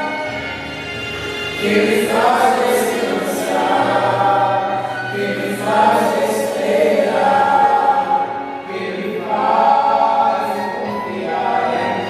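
Choir singing a gospel hymn in phrases of about two seconds, over a steady low accompaniment.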